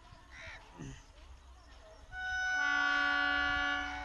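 An approaching Indian Railways EMU local train sounding its horn: one long steady blast of several tones sounded together, starting about halfway in and held for about two seconds. A crow caws once near the start.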